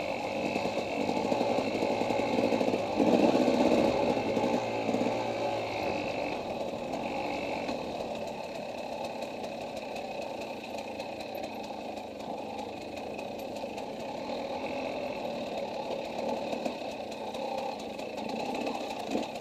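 KTM dirt bike engine running as the bike is ridden along narrow trail, a little louder about three seconds in, then steady.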